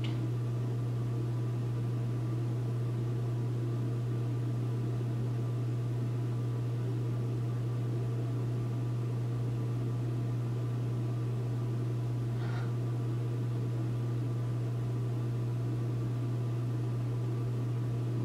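Steady low hum with an even hiss over it, unchanging throughout, with one faint brief sound about twelve seconds in.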